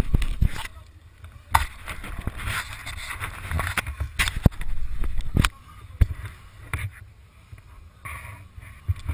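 Enduro motorcycle going down a rocky trail: sharp, irregular knocks and rattles as it jolts over stones, over a low rumble.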